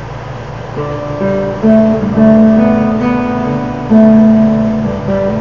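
Classical guitar played fingerstyle: a slow melody of held, ringing notes over plucked chords, the first notes coming in about a second in.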